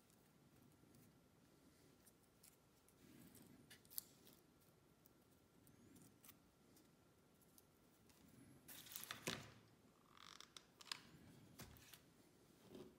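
Faint handling of small cardboard pieces: light clicks and rustles, with a louder brief rustle and clatter about nine seconds in.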